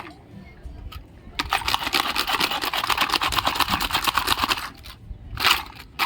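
A rapid, even clicking rattle lasting about three seconds, then a short rasp near the end.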